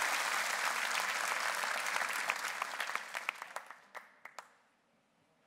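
Audience applause dying away: the dense clapping thins out after about three seconds into a few scattered claps and stops about four and a half seconds in.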